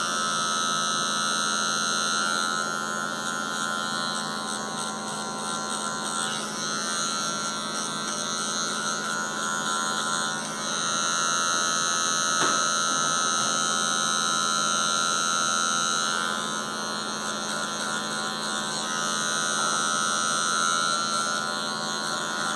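Electric hair clippers running with a steady hum, the tone and level shifting slightly a few times as they are worked.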